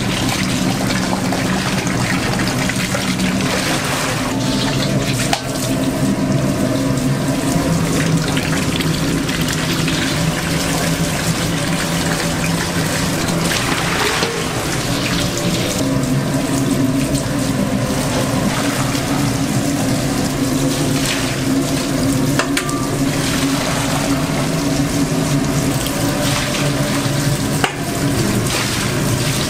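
Water running steadily from a tap into a sink, over a steady low hum, with a couple of short knocks.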